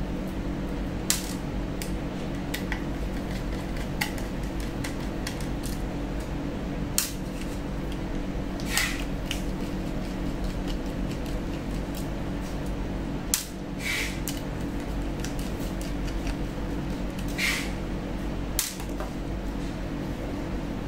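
Small screwdriver at work on the screws of a laptop hard drive's bracket: scattered sharp clicks and taps of the tool and small parts, a few seconds apart, over a steady low hum.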